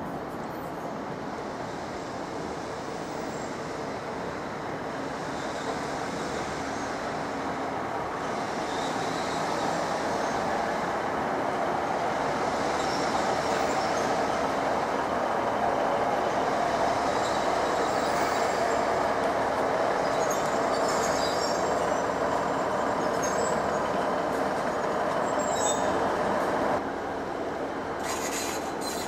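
A train running at a station: steady rumble of wheels on rail that grows louder over the first fifteen seconds or so, with faint high-pitched wheel squeals, then drops suddenly near the end.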